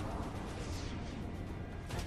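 Film soundtrack: background music over a steady low rumble.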